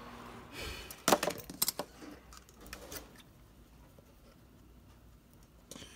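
A quick cluster of light clicks and rattles from small hard parts being handled on a workbench about a second in, a couple of faint ticks, then quiet room tone.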